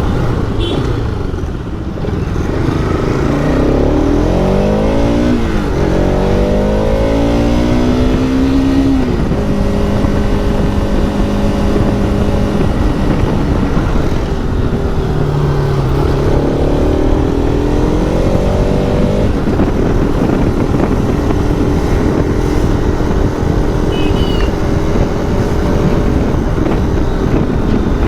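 Motorcycle engine on the move, revving up and shifting. Its pitch climbs in steps early on and again past the middle, holding steady while cruising in between.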